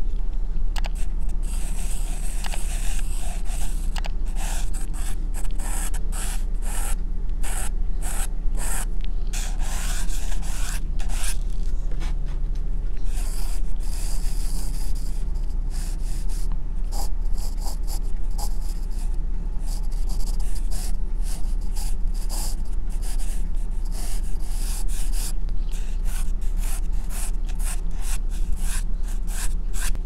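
Graphite pencil scratching across drawing paper in many short, irregular sketching strokes, over a steady low hum.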